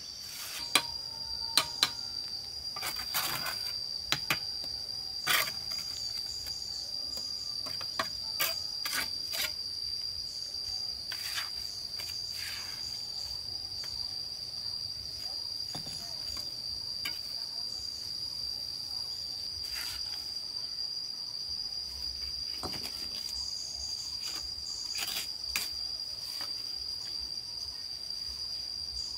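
Steady, high-pitched insect drone, with scattered sharp knocks and taps from construction work on top of it.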